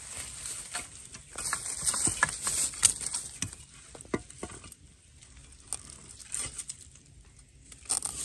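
Dry bamboo leaf litter and soil rustling and crackling as a gloved hand brushes them away from the base of a bamboo shoot. It comes in bursts of sharp crackles, busiest in the first few seconds and again near the end, with a quieter stretch in between.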